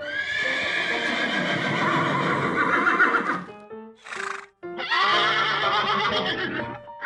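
Horse whinnying twice, a long call and then a shorter one, with a short breathy blow between them. Background music plays underneath.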